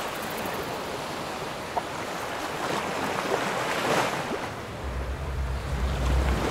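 Sea waves washing onto a beach: a steady rush of surf that swells about four seconds in.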